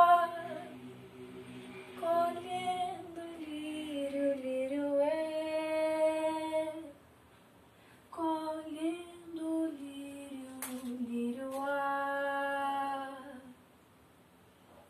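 A woman singing unaccompanied: a held note fades just after the start, then two slow melodic phrases of several seconds each follow with a short pause between them. Two brief clicks sound during the second phrase.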